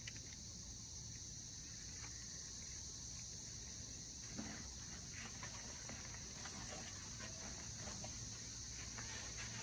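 Cicadas calling in a steady, high-pitched drone, with faint rustles and scrapes of digging through soil by hand from about four seconds in.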